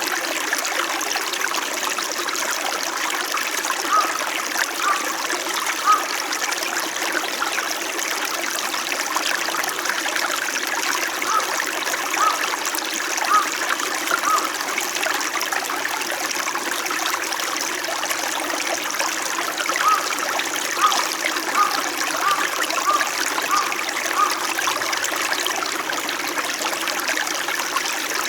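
A small winter mountain stream flowing and trickling in a steady rush, with clusters of short plinks rising out of the flow now and then.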